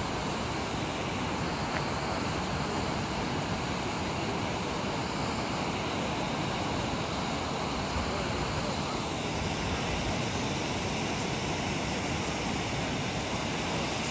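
Steady ocean surf with wind buffeting the microphone, an even rushing noise throughout.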